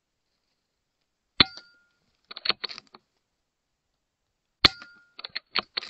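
Two shots from a .22 Airmaks Krait L PCP air rifle, about three seconds apart, each a sharp crack with a brief ring after it, followed each time by a quick run of clicks.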